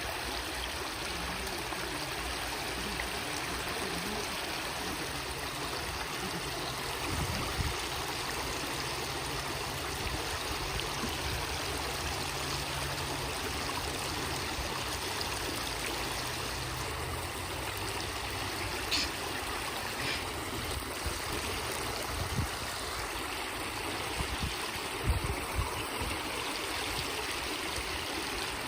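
River water flowing steadily over and around stepping stones, a continuous watery rush, with a few brief low bumps now and then.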